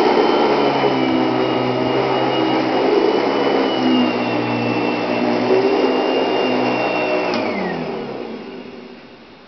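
Panasonic Jet-Flo MC-6230 upright vacuum cleaner running steadily, motor and brushroll going. About seven seconds in it clicks off and the motor winds down, its pitch falling away until it is quiet.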